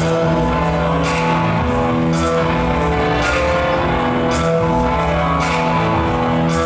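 Wrestling entrance theme, a slow heavy rock song with guitar and a sharp drum or cymbal hit about once a second, played loud over an arena's sound system.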